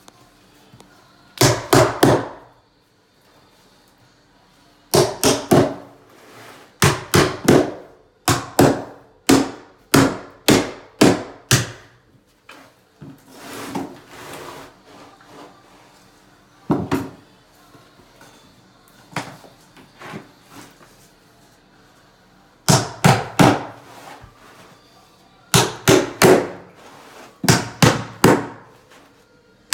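Hammer driving the nails of carpet tack strip into a wooden subfloor, in quick runs of three to six sharp strikes with pauses between.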